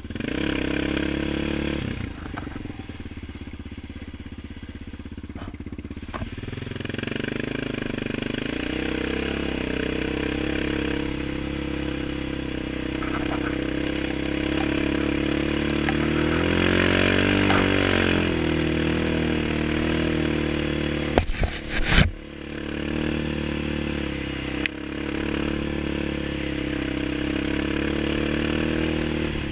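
Yamaha Raptor 700R quad's single-cylinder four-stroke engine running under way, its pitch rising and falling with the throttle. A couple of loud sharp knocks come about three quarters of the way through.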